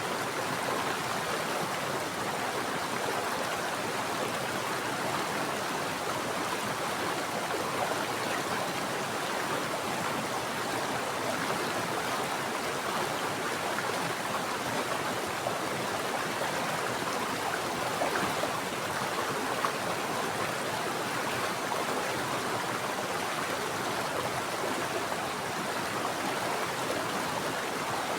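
Mountain stream water flowing steadily over rocks, an even rushing and gurgling without breaks.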